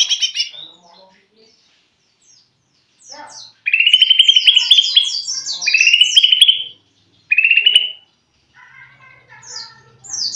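Caged male greater green leafbird (cucak ijo) singing in short bursts of fast, high chattering trills: a burst at the start, three phrases close together in the middle, then quieter scratchy twittering near the end. The bird is still learning its song.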